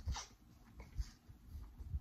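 Close-up eating sounds of biting and chewing seasoned corn on the cob: wet mouth noises with a few short, sharp clicks of kernels giving way.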